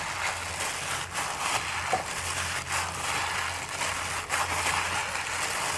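Hand in a thin disposable plastic glove squeezing and mixing a thick, crumbly dough in a glass bowl: the glove crinkling and the dough squelching in a continuous rough rustle with scattered small clicks.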